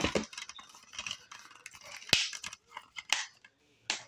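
Plastic DVD cases being handled and shuffled in a plastic storage bin: sharp clicks and knocks of case against case, with scraping rustles as they slide. The loudest knock comes about two seconds in.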